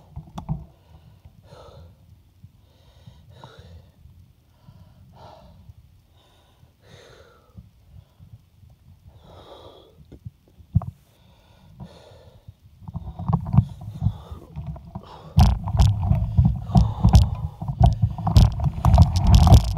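Heavy breathing of a mountain biker, about one breath every two seconds, with a faint rumble of tyres on a gravel road beneath it. About thirteen seconds in, a loud low rumble of wind on the microphone and tyres on gravel takes over, with sharp rattling clicks from the bike.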